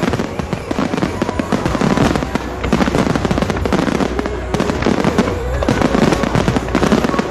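Dense fireworks barrage: many shells bursting in rapid succession, a continuous rattle of bangs and crackles with no pause.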